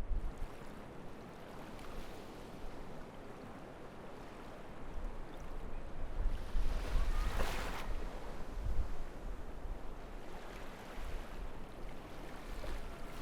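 Seaside ambience: waves washing on the shore with wind rumbling on the microphone, one wave breaking louder about halfway through.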